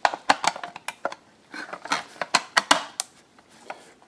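Irregular sharp clicks and taps of plastic and metal, several a second, as the drive's circuit board is handled and fitted back into the internal DVD drive's casing.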